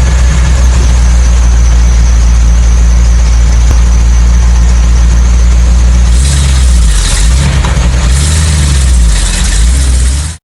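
Tow truck engine running steadily at idle with a strong low hum. Between about six and nine seconds in its pitch shifts and some hiss comes and goes. The sound cuts off suddenly at the end.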